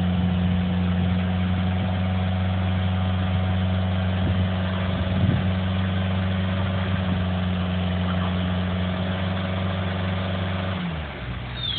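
A heavy machine's engine running at a steady idle, with a deep, even note that slides down and drops away near the end.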